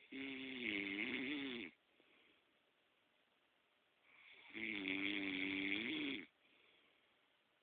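A sleeping man snoring: two loud snores about four and a half seconds apart, each about a second and a half long, with quieter breathing between them.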